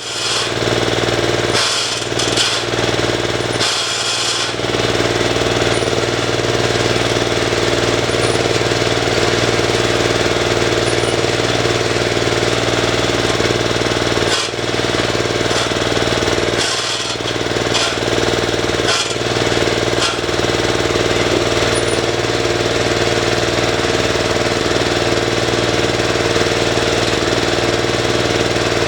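Ride-on lawn mower engine running steadily, with a few short breaks in the sound in the first seconds and again around the middle.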